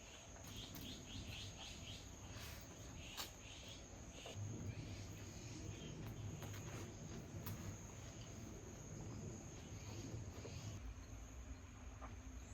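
Insects chirring in a steady, high-pitched tone, with a few faint clicks and a soft low rumble underneath.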